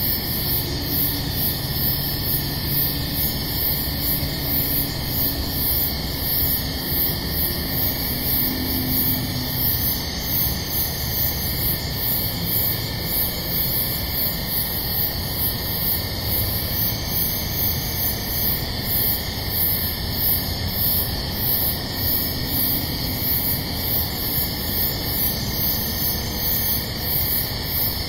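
Steady background hiss with a faint high-pitched pulse repeating about one and a half times a second.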